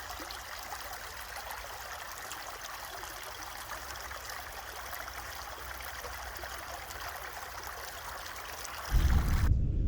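Steady rushing hiss of running water, like a stream. About nine seconds in, a loud low rumble cuts in and the water sound stops abruptly.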